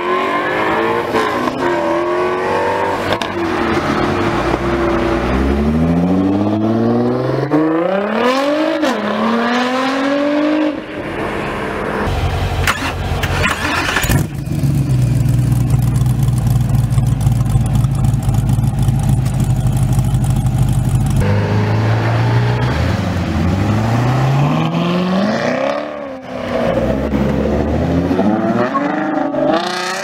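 Loud sports-car engines and exhausts. First a Ford Mustang accelerates hard, its engine note climbing with gear changes. Then a race car's engine runs loud and steady for several seconds, and near the end another Ford Mustang revs and accelerates away through the gears.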